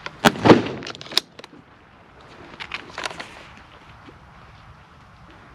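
Semi-automatic shotgun fired once about half a second in, a follow-up shot at a wounded duck still alive on the water, with sharp clicks just before and after it. Faint scattered clicks and rustling follow.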